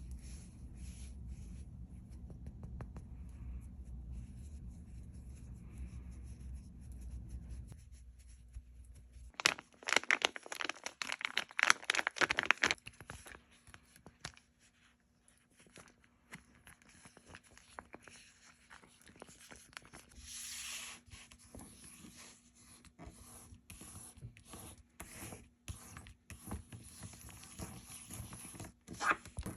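Sensory fidget toys being handled and fiddled with by hand: scratchy rubbing, crinkling and scraping, loudest in a burst of rapid scratching about ten to thirteen seconds in, then short scattered scrapes and clicks. A low steady hum sits under the first third.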